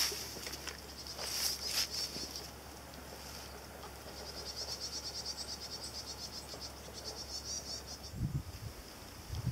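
Spinning reel being wound during a lure retrieve: a fast, high whirring that pulses in and out. Near the end it stops and a few low thumps follow.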